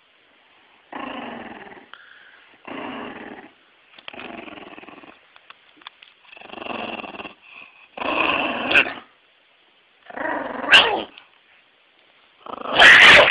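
Dog growling in a series of short bursts about every second and a half, growing louder as it goes, with a loud outburst at the very end: guarding a water bottle it treats as food while a hand tries to take it.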